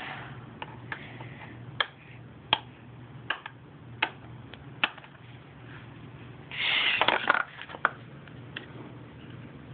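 Handling noise from small toys or objects being moved by hand: a string of small sharp clicks and taps, irregularly spaced, with a short rustling scuffle about seven seconds in.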